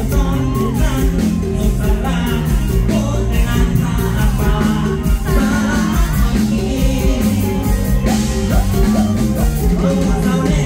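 A man singing a Thai luk thung song live into a microphone, backed by an amplified band with bass and drums keeping a steady beat.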